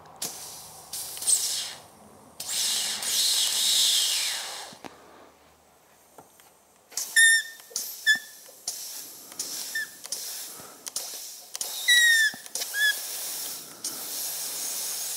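Compressed-air blow gun blowing into the fluid port of a Girling brake master cylinder to force the piston out. Several hissing blasts, then after a short pause quick hisses with brief falling whistles as air escapes past the cloth-held end, and a steadier hiss near the end.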